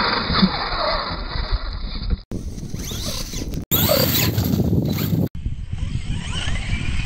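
Losi LMT RC mega truck driving hard on sand: its electric motor whines up and down with the throttle while the tires spray sand, with a sharp knock about half a second in. The sound breaks off abruptly several times between short clips.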